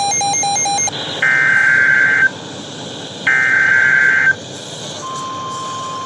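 Weather radio tornado-warning alert. A quickly pulsing tone ends just under a second in, followed by two buzzy one-second data bursts about a second apart. About five seconds in, the steady single-pitch warning alarm tone begins, all over a hiss of static.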